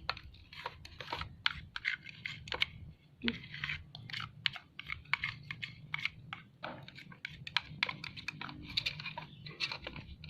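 Spoon stirring a thickening mix of shampoo and dish soap in a bowl: quick, irregular clicks and scrapes of the spoon against the bowl.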